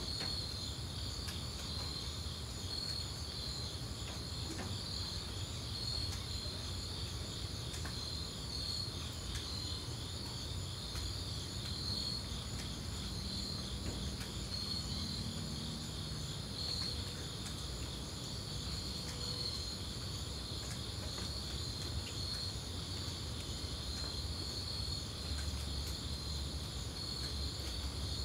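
Insect chorus of crickets trilling steadily, a high-pitched pulsing chirr, over a low rumble.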